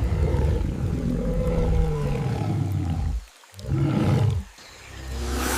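Orangutan calling: a deep, low call of about three seconds that sinks in pitch, then a shorter call after a brief pause.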